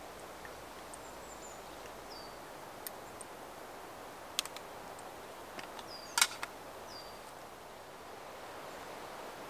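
Quiet woodland ambience with a small bird's short, high, downward chirps repeating every second or two. A few sharp clicks and taps from handling, the loudest a single sharp tap about six seconds in.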